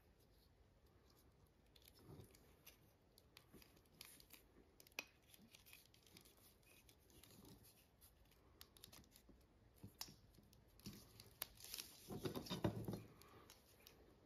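Near silence with faint handling sounds of the leather belt being worked by hand: scattered light clicks and short rustles, busier and louder for a moment near the end.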